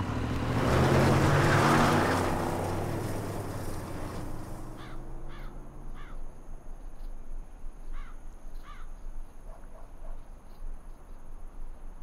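A car accelerating away, engine and road noise swelling over the first two seconds and then fading into the distance. From about five seconds in, a bird caws about five times, with a faint steady high hiss.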